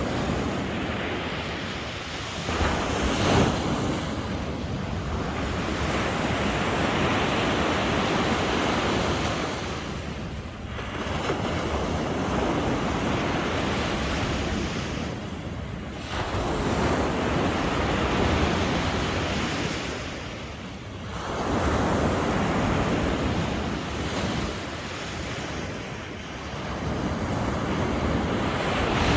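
Sea waves breaking and washing on the shore, the surf swelling and falling back every five seconds or so, with wind rumbling on the microphone.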